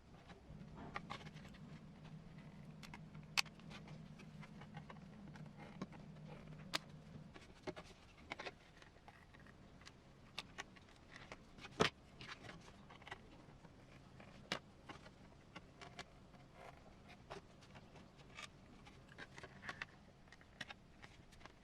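Scattered light clicks and taps, as of small parts being handled, over a low steady hum that fades about seven seconds in.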